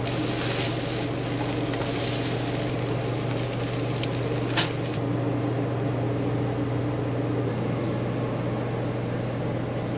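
Diced meat sizzling in a nonstick frying pan while a plastic masher stirs it, over a steady low hum. A single sharp click about four and a half seconds in, as the toaster lever is pushed down.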